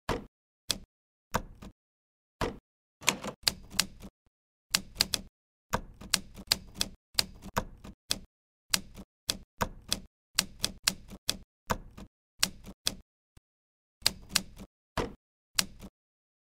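Simulated typewriter key strikes from an iPad typewriter app, one sharp clack per character in an uneven typing rhythm. There is a brief pause a little after four seconds and another near the end, and the strikes stop shortly before the close.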